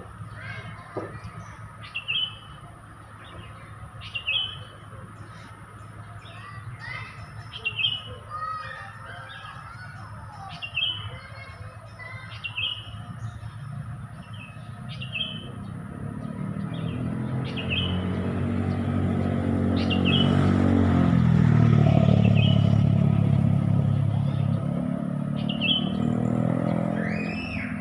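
Sooty-headed bulbuls and other songbirds chirping, with a short high note repeating about once a second over bubbly warbles. Over the second half a vehicle passes, swelling to its loudest about three-quarters of the way through and then fading.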